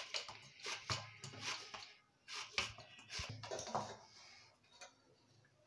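Hands kneading and pressing a soft rice-flour and maida dough against a steel bowl and plate: irregular soft slaps, scrapes and light clicks on the metal, with a brief gap about two seconds in.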